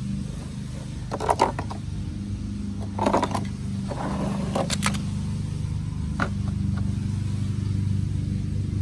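Hollow plastic animal toys and a plastic toy dump truck bed clattering and knocking as the bed is tipped and the toys slide out, in three short bursts of rattling and a single click later, over a steady low hum.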